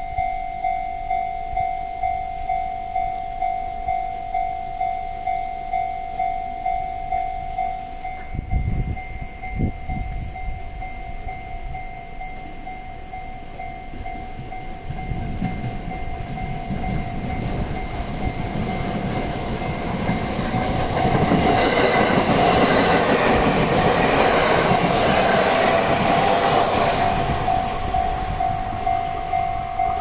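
Japanese level-crossing warning bell ringing steadily at about two strokes a second while a JR 701 series four-car electric train approaches and passes over the crossing. The train's rumble and wheel clatter builds from about halfway through, is loudest about two-thirds of the way in and drowns out the bell, then fades while the bell rings on.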